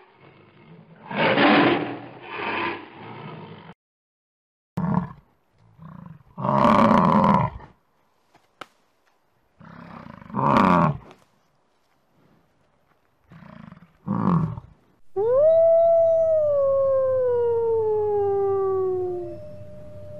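A tiger growling and roaring, then an American bison giving several short, deep grunting bellows. About fifteen seconds in, a wolf starts a long howl that falls slowly in pitch, then a second lower howl near the end.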